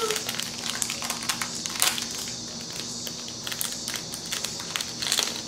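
Plastic jewellery packaging crinkling and crackling in the hands, with irregular clicks, as a pair of earrings is unwrapped. One sharp crackle comes about two seconds in and another near the end.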